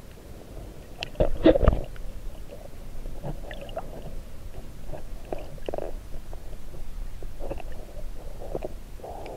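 Muffled underwater sound picked up by an action camera inside its waterproof housing: irregular low gurgles and knocks of moving water, loudest about a second in.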